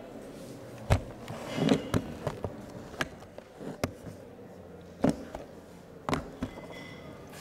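Irregular knocks and clicks, about a dozen, spaced unevenly over several seconds, with a short rustling scrape about two seconds in.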